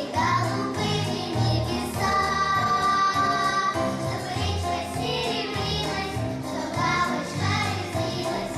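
Children's vocal ensemble singing a children's song over instrumental backing with a pulsing bass line, one note held long a couple of seconds in.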